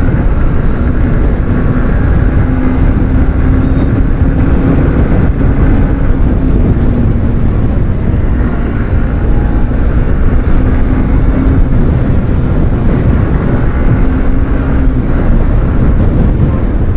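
Motorcycle riding at road speed: a steady engine hum under heavy rushing wind on the microphone.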